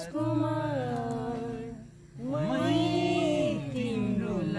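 A young woman singing two long, sliding vocal phrases, with a short breath between them about two seconds in.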